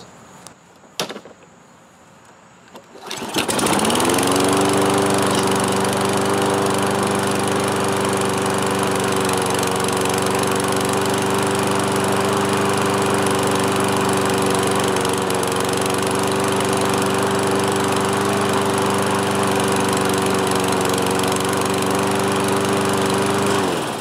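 Toro Recycler mower's single-cylinder Kohler engine pull-started and catching on the first pull about three seconds in. Its speed rises quickly, then it runs steadily until it is shut off near the end and winds down. This is a cold start on the closed automatic choke, the engine's first run after its clogged carburetor was cleaned.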